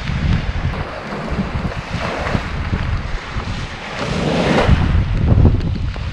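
Storm waves surging in and washing up the shore, two surges about two and four seconds in, under gusty wind buffeting the microphone.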